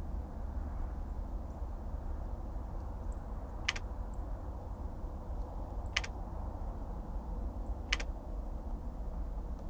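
Steady low rumbling background noise, with three sharp clicks about two seconds apart in the middle and later part.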